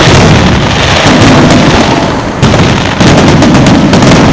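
Aerial firework shells bursting in quick succession: loud booms, a fresh one about two and a half seconds in and another about three seconds in, with rapid crackling in the second half.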